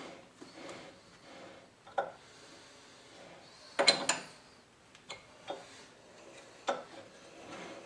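Sharp metallic clicks and knocks as a four-jaw lathe chuck is turned by hand to center a part against a dial indicator. The loudest cluster of knocks comes about four seconds in.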